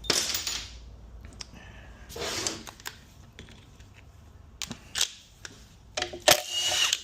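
Metal transmission parts being handled during a teardown: a few short rasping scrapes and several sharp metallic clicks and clinks.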